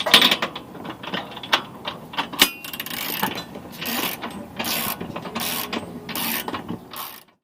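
Ratcheting socket wrench with a 3/4-inch socket clicking as hitch mounting bolts are run in. Irregular clicks at first, then steady back-and-forth strokes about one every 0.7 s, cutting off suddenly near the end.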